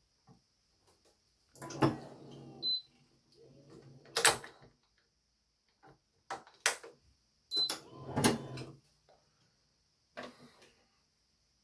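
Badminton racket being strung on a stringing machine: sharp clicks and clacks of clamps and string. Twice it gives about a second of low mechanical humming.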